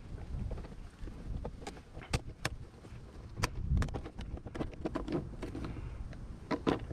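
Hand snips cutting stiff plastic: sharp clicks and snaps at irregular intervals, mixed with the rustle and dull knocks of the plastic panel being handled.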